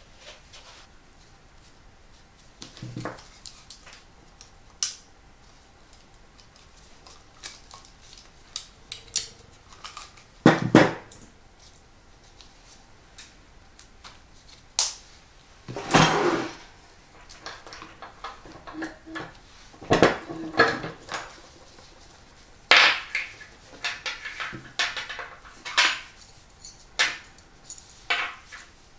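Metal hand tools and small rivet parts clinking and clacking on a worktable while a rivet is set in a canvas strap: a rotary hole punch and a bench rivet press being picked up, set down and worked. Irregular sharp clicks and clatters, with a few louder clacks through the middle and latter part.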